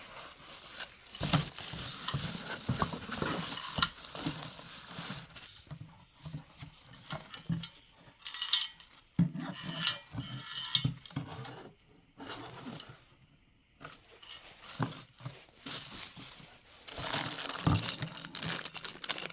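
Handling noise: irregular clicks, light clinks and rustling, with a few sharper knocks.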